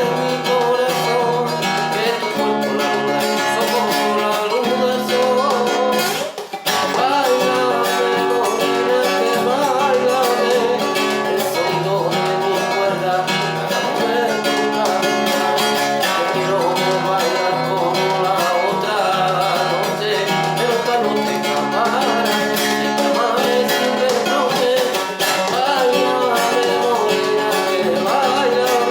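Acoustic guitar music playing continuously, with a brief drop in loudness about six seconds in.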